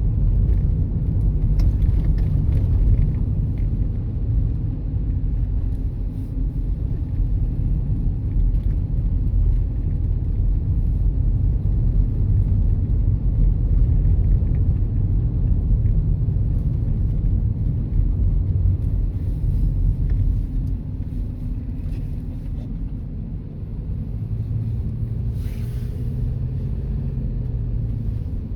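Steady low rumble of road and engine noise heard from inside a moving car's cabin while driving.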